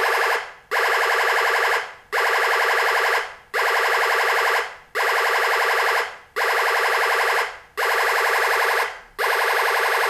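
UM3561 sound-generator IC set to its machine-gun effect, playing through a small loudspeaker: bursts of rapid electronic rattling about a second long with short breaks between them, repeating roughly every second and a half, with no bass.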